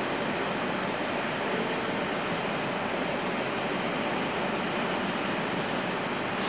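A train running past on the track: a steady rushing rumble of wheels on rails.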